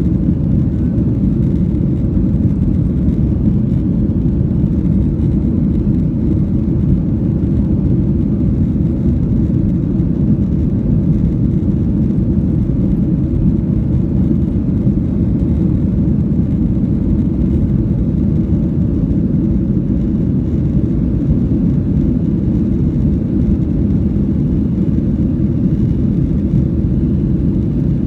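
Cabin noise inside a Boeing 737-800 airliner: a steady, deep rumble of its CFM56 turbofan engines and rushing air, holding even throughout.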